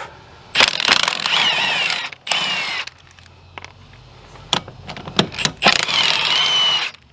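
Impact wrench with a 17 mm socket hammering and spinning off wheel lug nuts in three bursts, its whine rising and falling, with a few clicks between bursts.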